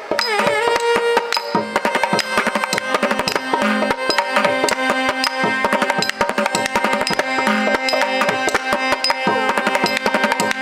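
Live Carnatic accompaniment to a misra alarippu: rapid mridangam strokes under a violin melody, over a steady drone.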